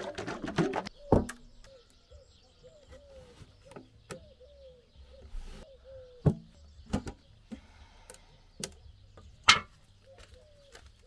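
Metal paint can being shaken, rattling for about the first second, then scattered sharp clicks and knocks of the can and its lid, the loudest just over a second in and near the end. A bird calls over and over with short falling notes in the background.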